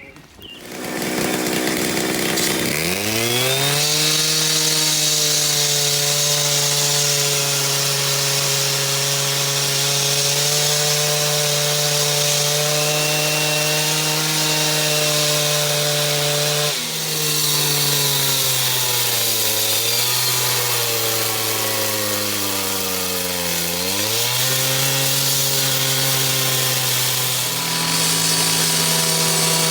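Power saw cutting concrete. It spins up over the first few seconds to a steady high whine, then sags in pitch twice as the blade is loaded in the cut, about two-thirds of the way through and again a little later, and recovers near the end.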